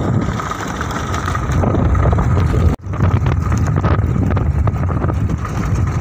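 Motorcycle engine running while riding over a dirt road, mixed with wind rumble on the microphone. The sound drops out for an instant about three seconds in.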